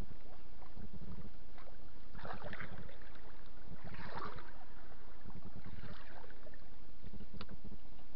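Topwater muskie lure being walked across the lake surface, splashing three times, about two seconds apart. A steady low rumble runs underneath.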